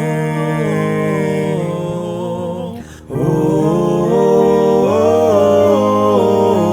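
Instrumental music carrying a melody over a bass line, with a brief drop in loudness about three seconds in before it picks up again.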